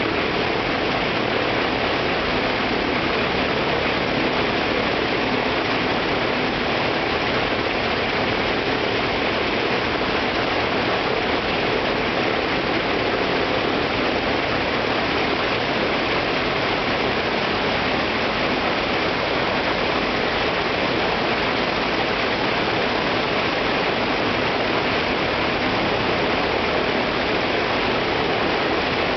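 Shvetsov ASh-82T fourteen-cylinder twin-row radial engine of an Il-14T running steadily on the ground with its propeller turning, heard close up as a loud, dense, even noise that holds the same speed throughout.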